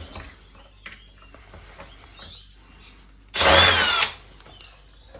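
Electric screwdriver running in one short burst of under a second, about three seconds in, driving out a screw, with a pitch that rises and then falls. Faint clicks of handling come before it.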